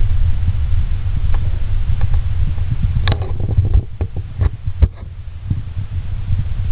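Uneven low rumble of handling noise on a handheld camera's microphone as it is moved around, with a run of sharp clicks and knocks about three to five seconds in.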